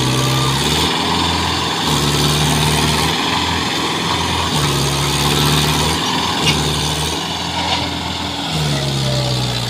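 Mahindra Yuvo tractor's diesel engine running under heavy load while pulling a loaded trolley stuck in mud; its note sags lower and picks back up again and again, about every second or so, as the engine strains against the load.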